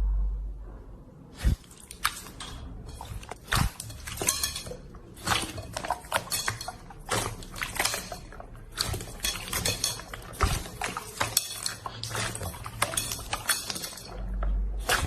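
Slime being handled, giving a busy run of sharp clicks and crackles from about a second and a half in, with a low rumble at the start and again near the end.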